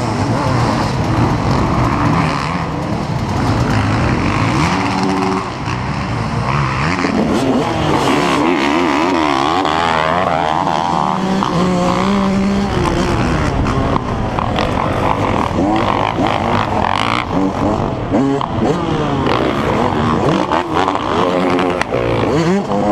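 Several dirt bike engines revving hard at once, among them a two-stroke 2005 Yamaha YZ125, their pitches rising and falling over one another as the bikes race.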